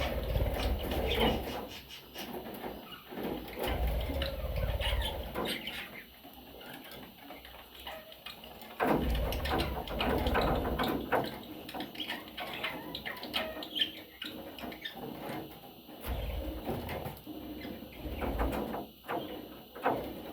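Budgerigars stirring and scratching about, with irregular rustles, clicks and low knocks.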